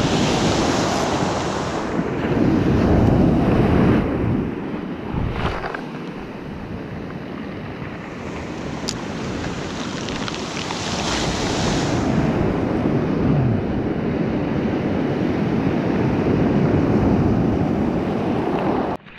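Ocean surf breaking and washing up the beach, swelling and easing wave by wave, with wind buffeting the microphone. The sound cuts off suddenly near the end.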